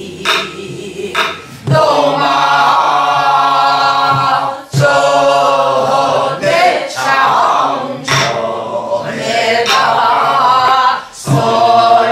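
A group singing a Korean Namdo folk song together in long, wavering held notes, with a few sharp strokes on a buk barrel drum.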